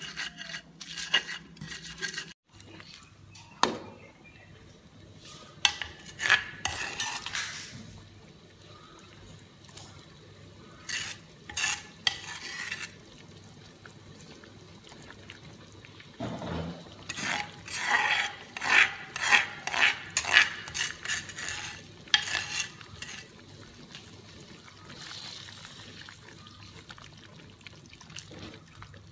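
A metal spatula stirring a vegetable stew in an aluminium wok, scraping and clinking against the pan in bursts of quick strokes, the busiest run in the second half. In the first two seconds a stone pestle grinds and taps in a stone mortar, then cuts off.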